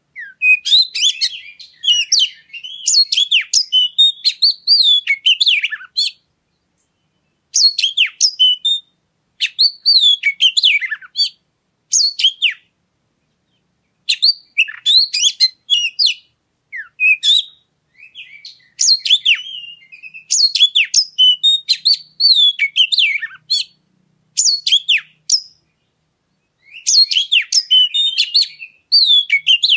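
Oriental magpie-robin (kacer) singing: rapid, varied high whistles, chirps and trills in loud phrases a few seconds long, separated by short silent gaps.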